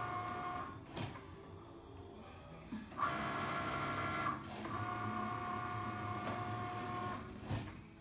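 Cricut Maker cutting machine running, its motor whining steadily. The whine stops for about two seconds a second in, then runs again in two passes before stopping near the end, with a short click at some of the starts and stops.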